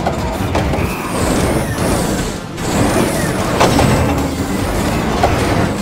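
Cartoon heavy-machinery sound effects: a steady, loud low engine rumble with mechanical noises as a machine's excavator arm hauls a bulldozer out from where it is stuck.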